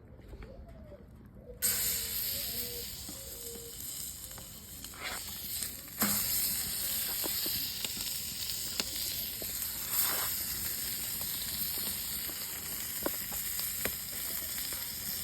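Scallops sizzling as they sear on a hot cooking surface over an open fire, with scattered sharp pops. The sizzle starts suddenly about a second and a half in, as the scallops hit the hot surface, then holds steady.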